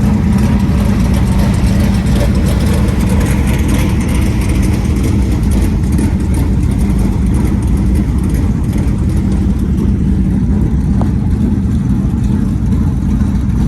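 Dirt super late model race cars' V8 engines running on warm-up laps: a loud, steady engine drone with a deep low rumble and no clear rises or falls.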